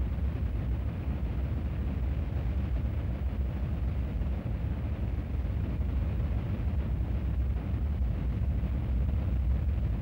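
Victoria Falls: a huge volume of water plunging into its gorge, heard as a steady, deep rushing noise heavy in the low end.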